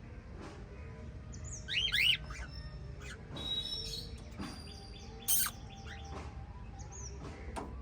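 Several pet budgerigars chirping and squawking in short, scattered calls, with quick up-and-down chirps about two seconds in and a louder harsh squawk about five seconds in.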